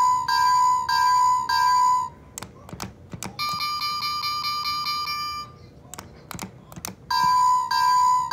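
Toy railroad crossing's electronic warning bell dinging about every 0.6 s. About two seconds in it stops; a few clicks follow, then a different steady electronic tone for about two seconds, more clicks, and the dinging bell starts again near the end.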